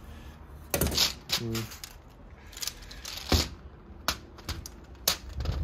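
Keycaps being pried off a Dell L100 membrane keyboard: about half a dozen sharp plastic clicks and snaps spread over several seconds, the loudest a little past the middle.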